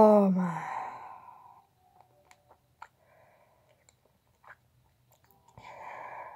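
A boy's falling groan that trails into a long breathy exhale, then small wet mouth clicks and smacks as he works a Toxic Waste sour candy in his mouth, with another breathy exhale near the end.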